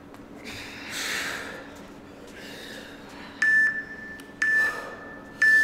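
Gym interval timer giving three short, high countdown beeps about a second apart near the end, signalling that the 40-second work interval is running out. A heavy exhale about a second in.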